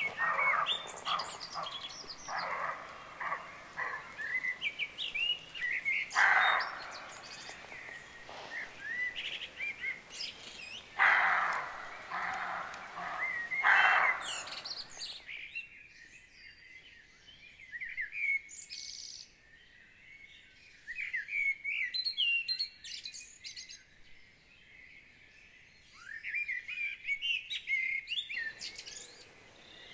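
Roe deer barking: a series of short, harsh barks at irregular intervals through the first half, the loudest about eleven seconds in, the alarm call of frightened roe deer. Songbirds sing throughout, and after about fifteen seconds only the birdsong remains.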